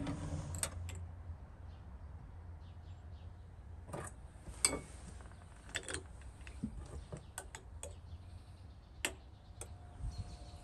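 Scattered sharp clinks and taps of a metal fork against a glass preserve jar and a china plate as pieces of preserved fruit are lifted out, the loudest clink about halfway through.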